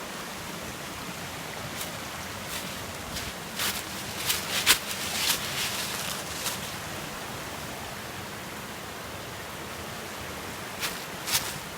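Steady rush of a small waterfall, with a scatter of short sharp crunches, the loudest bunched about four to five seconds in and again near the end.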